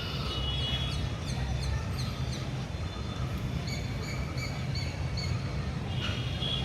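Street ambience: a steady low rumble of traffic, with a bird chirping in quick repeated downward notes and then short high repeated calls. A vehicle horn starts sounding near the end.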